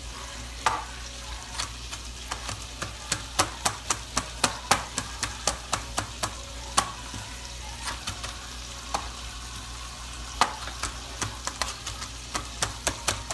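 Knife rough-chopping parsley, in runs of quick sharp taps with a few louder single strikes, over the steady sizzle of a chuck roast browning in oil in a skillet.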